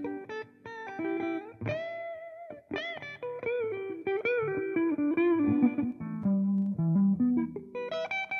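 Electric guitar fitted with a new budget pickup, played through the Amplitube 4 amp simulator: a run of single notes, several of them bent upward and shaken with vibrato.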